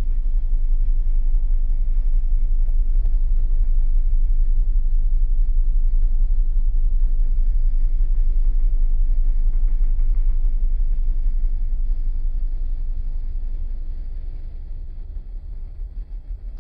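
Loud, steady low rumble of the ferry's engines and propulsion heard inside the wheelhouse, fading over the last few seconds.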